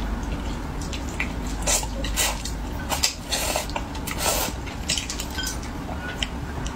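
Close-up eating sounds: chopsticks clicking against a porcelain bowl and plate, with wet slurping and chewing of braised fish in its spicy sauce, as a string of short separate clicks and slurps.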